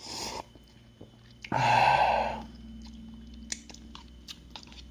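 A person eating noodles: chewing with small wet mouth clicks. About a second and a half in there is one louder breathy rush lasting under a second.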